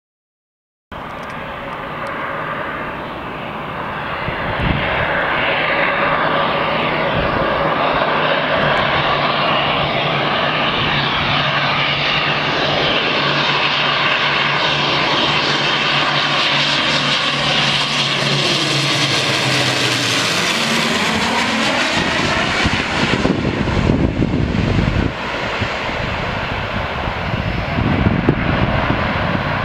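Fokker 50 twin-turboprop airliner on approach and passing close by to land: a steady propeller drone with a low hum that grows louder, a sweeping phasing in the sound about two-thirds of the way through as it goes past, then a rougher, uneven rumble as it heads down the runway.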